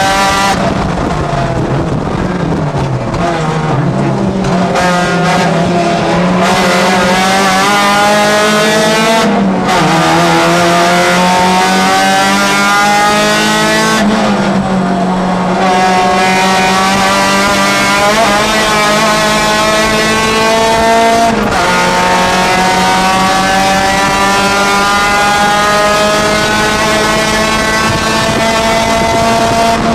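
Honda race car's four-cylinder engine heard from inside the cockpit at racing speed. Its pitch climbs steadily in long pulls through the gears, broken several times by drops as the driver lifts, brakes and shifts for corners.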